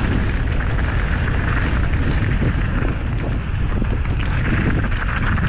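Wind buffeting the camera microphone and mountain-bike tyres rolling fast over a loose gravel trail, with a steady run of small knocks and rattles from the bike over stones and bumps.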